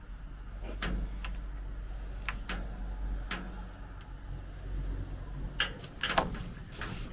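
A handful of short, sharp clicks and knocks as a polycarbonate sheet is handled and worked along its edge, over a low steady rumble.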